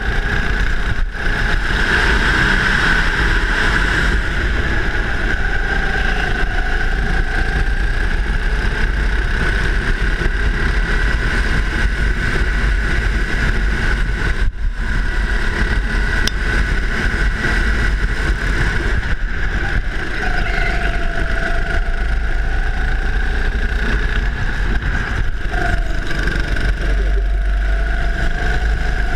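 Go-kart engine running hard at racing speed, its pitch rising and falling as the kart goes through the corners, over a heavy low rumble. The sound dips for a moment about a second in and again about halfway through.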